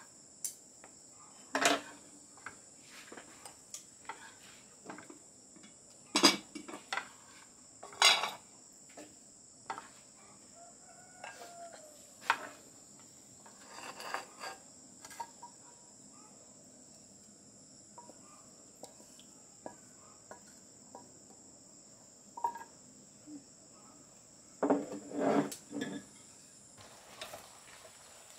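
Wooden spatula knocking and scraping against a frying pan and a ceramic plate as food is dished up, giving scattered sharp clinks, with a cluster of clatter near the end. Steady high chirring of insects throughout.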